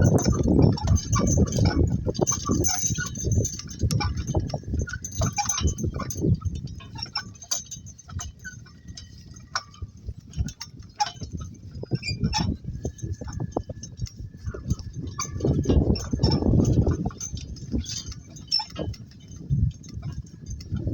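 Donkey-drawn work cart moving along: a rumbling rattle of the cart over the ground, with many short clicks and clinks, louder near the start and again about two-thirds of the way through.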